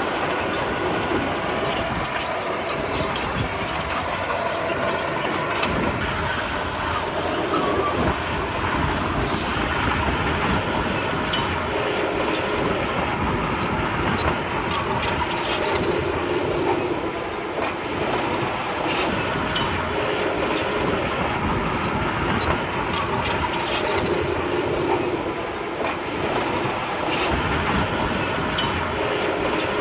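Komatsu D31P crawler bulldozer's diesel engine running steadily under work, with scattered sharp metallic clanks and rattles from its tracks.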